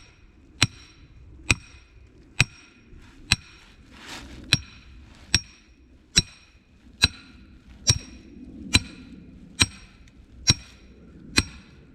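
Steady hammer blows on metal, about one a second, each ringing briefly: a steel trap stake being driven into the ground for a coyote trap set.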